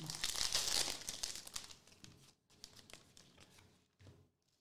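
Foil wrapper of a football trading-card pack being torn open and crinkled. The crinkling fades after about a second and a half into faint ticks as the cards are slid out and handled.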